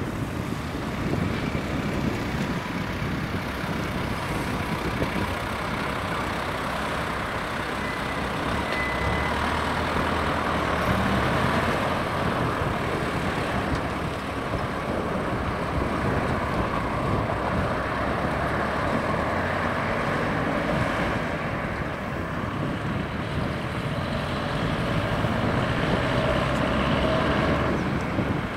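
Cars, a small flatbed truck and a UAZ off-roader driving one after another through a potholed crossroads: engines and tyres passing, with a steady rumble.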